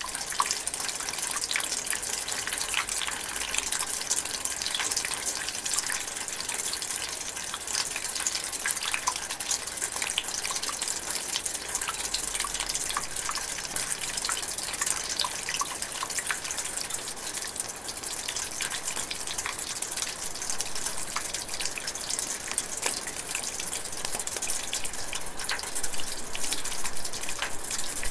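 Steady light rain drizzling, a constant hiss dotted with many small drips and patters.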